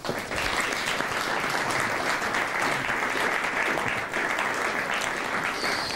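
Studio audience applauding steadily, the clapping breaking out all at once.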